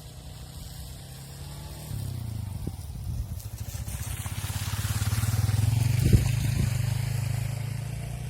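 A motorcycle passes along the road with its engine running: it draws near, is loudest about five to six seconds in, and then fades away. A short knock comes at its loudest point.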